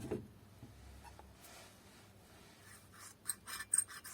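Short plastic scrapes and clicks about three seconds in, as the photoconductor drum of a Kyocera M2030 drum unit is worked free and lifted out of its housing.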